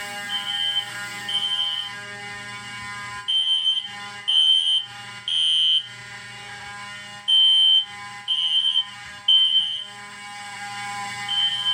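System Sensor Spectral Alert Classic horn strobe sounding a high tone in the temporal-3 pattern: three half-second beeps a second apart, then a pause, repeating. Under it a Federal Signal 450 vibrating horn buzzes steadily and somewhat unevenly; the owner says it is acting funny and blames wires working loose from its battery.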